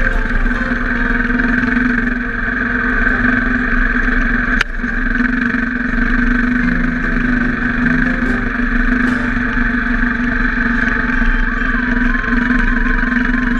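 Motorcycle engine running steadily under way while climbing a gravel track, with one sharp click about four and a half seconds in.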